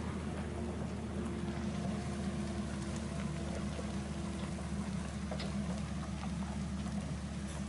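Engine of a heavily loaded timber truck running steadily, a low even drone with no break or change.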